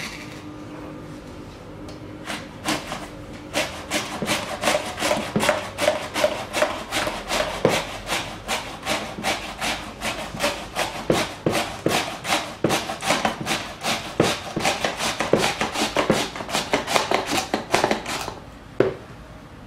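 A potato in a plastic hand guard is pushed back and forth across the blade of a plastic box mandoline slicer. It makes a quick run of scraping strokes, about three a second, that starts about two seconds in and stops shortly before the end.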